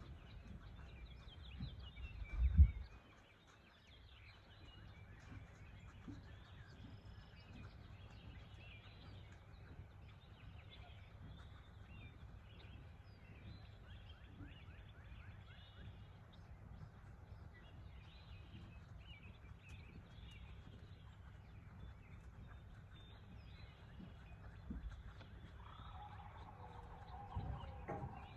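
Birds chirping and singing over a low steady rumble. A single sharp thump about two and a half seconds in is the loudest sound, and a short held tone is heard near the end.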